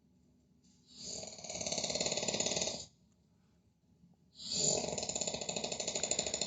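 A person snoring loudly: two long, rattling snores of about two seconds each, some three and a half seconds apart, with quiet between them.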